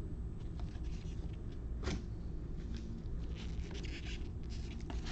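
Trading cards being handled and slid past one another by hand: short scrapes and flicks, with a busier run of scraping a little past the middle, over a steady low hum.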